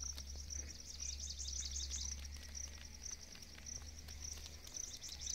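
Crickets chirping outdoors: a steady string of short, high chirps repeating several times a second, over a low steady hum.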